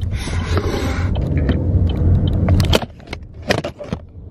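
Car cabin noise while driving: a low engine and road rumble that drops away suddenly near three seconds in, followed by a few sharp clicks or knocks.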